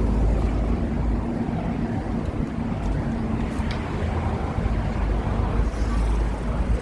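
Street traffic: a steady low rumble of motor vehicles, with a steady engine hum throughout.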